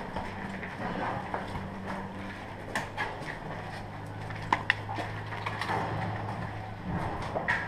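Scattered knocks and clicks over a steady low hum, with two sharp snaps about halfway through.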